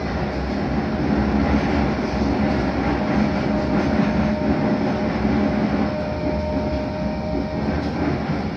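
A Blackpool tram running at speed, heard from inside the car: a steady rumble of wheels on rail and running gear. A faint steady whine holds through the middle few seconds.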